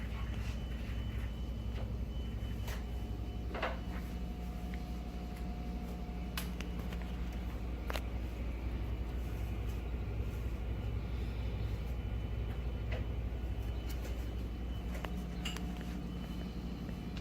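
Wood fire in a cast-iron fireplace boiler, with a dozen or so sharp crackles and pops scattered over a steady low hum.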